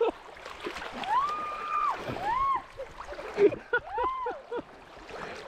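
A person's wordless high squeals, three drawn-out rising-and-falling cries, then a quick run of short laughing notes, over the wash of shallow moving water.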